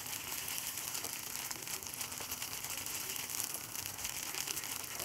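Chopped onions and ginger-garlic paste sizzling in hot oil in a nonstick kadai while being stirred with a wooden spatula: a steady crackling hiss with fine pops, the paste frying until its raw smell goes.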